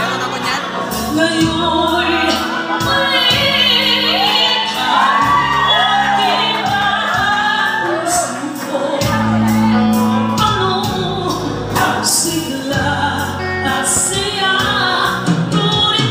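Live Filipino pop-rock band: a woman sings the lead into a microphone in long, arching runs over electric guitar, keyboard and percussion.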